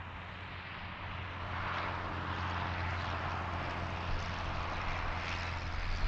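Interstate highway traffic: a steady low rumble of engines with a hiss of tyres on pavement that swells about a second and a half in, as vehicles pass closer.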